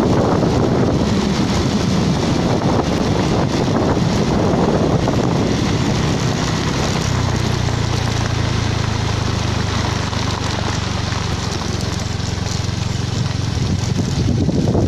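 Wind buffeting the microphone of a moving vehicle, with its engine running underneath. A steady low engine hum comes through more clearly from about halfway in.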